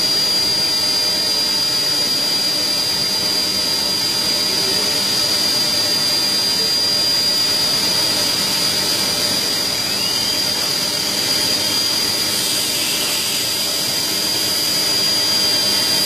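Factory machinery running steadily: an even machine noise with a constant high-pitched whine that does not change.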